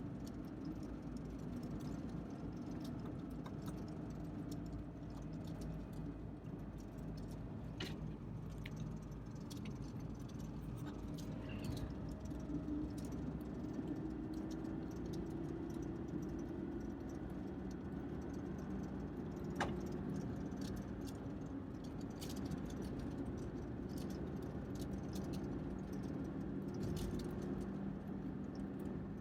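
Lada Niva's engine running, heard inside the cabin: a steady low hum with light rattles and occasional small clicks. An engine tone rises slowly about twelve seconds in and levels off a few seconds later.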